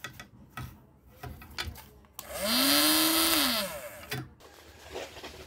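Small electric motor of a homemade cardboard toy car switched on, rising quickly to a steady whine and winding down in pitch after about a second and a half as it is switched off. Light knocks and clicks from the cardboard body being handled come before and after.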